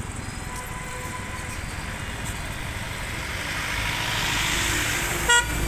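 Scooter engine and road noise while riding, swelling about four seconds in. Near the end a short, loud vehicle horn beep.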